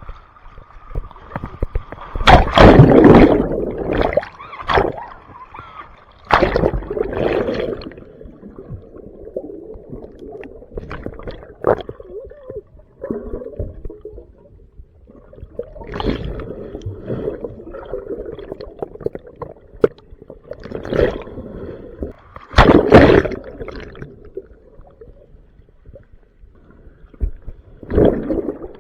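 Ocean waves washing in, with several louder surges of surf a few seconds apart.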